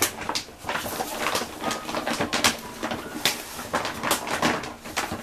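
Gift wrapping paper rustling and crinkling in many short, irregular bursts as a present is unwrapped by hand.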